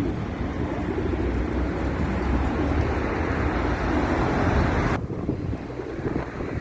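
Steady road traffic noise with wind buffeting the microphone, dropping suddenly to a quieter, wind-dominated sound about five seconds in.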